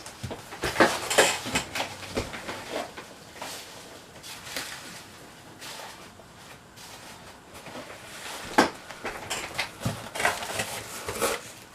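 Hands rummaging through foam packing peanuts in a cardboard shipping box: irregular rustling and light clattering, busiest about a second in and again over the last few seconds, quieter in between.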